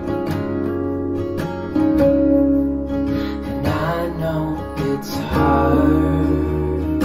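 Recorded song playing through GR-Research A/V-O full-range loudspeakers: strummed and plucked acoustic guitar over steady bass notes that change every second or two.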